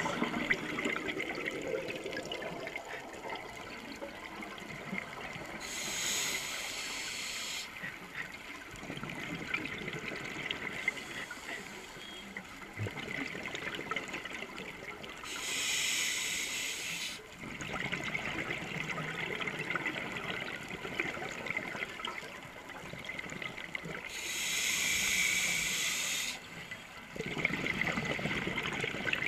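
Scuba diver breathing through a regulator underwater: three hissing inhalations, each about two seconds long and about nine seconds apart, with long stretches of exhaled air bubbling out between them.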